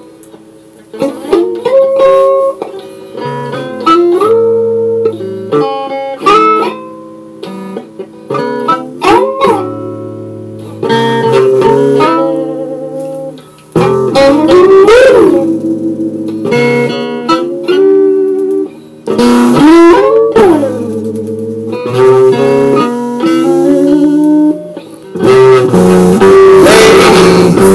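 Guitar playing an instrumental passage of single notes and chords, with several notes bent up and back down in pitch. The sound grows fuller and denser near the end.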